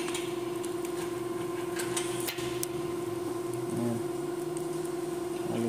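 A steady hum, with a few faint metallic clicks about two seconds in as small bolts are taken out of a camshaft timing gear with an Allen key.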